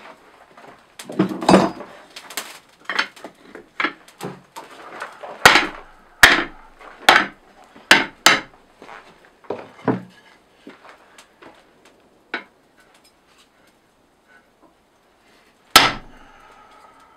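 Hand hammer striking a red-hot bar on an anvil: about a dozen irregular blows over the first ten seconds, then a few light taps and one more hard blow near the end.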